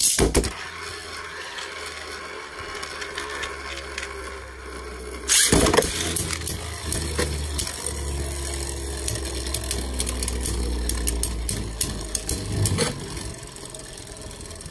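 Two Beyblade spinning tops, Vanish Fafnir and Mirage, launched with a sudden burst at the start, then spinning on the stadium floor with a steady low hum and frequent small clicks. A hard clash about five seconds in and another sharp knock near the end.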